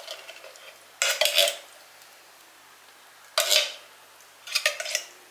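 A metal fork scraping and clinking inside an open tin can as canned jack mackerel is pried out. The clinks come in three short bursts: about a second in, past three seconds in, and near the end.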